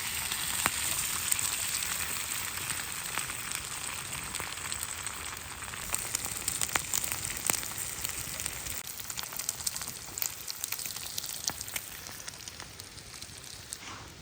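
Food sizzling and spitting on a hot iron frying-pan dish, a steady hiss with frequent sharp pops that slowly dies down.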